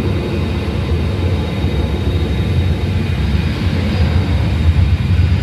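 Airbus A320's twin turbofan engines spooled up to takeoff thrust during the takeoff roll, heard from inside the cabin: a steady, loud low rumble with a thin high whine over it.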